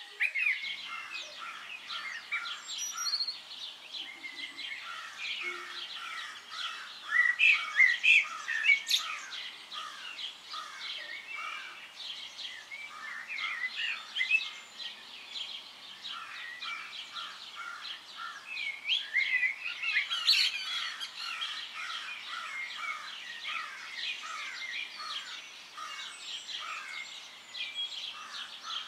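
Many small birds chirping and calling without pause, a dense chorus of short chirps and trills. There are louder flurries about seven to nine seconds in and again about twenty seconds in.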